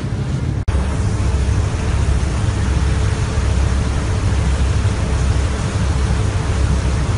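Lifeboat engines running steadily under way, a heavy low rumble mixed with rushing wind and water. The sound drops out for an instant just under a second in, then carries on unchanged.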